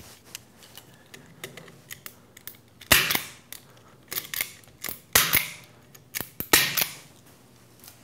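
Nylon zip ties being cinched and their tails cut, giving a string of sharp snaps and clicks. They start quietly, then come loud and clustered from about three seconds in.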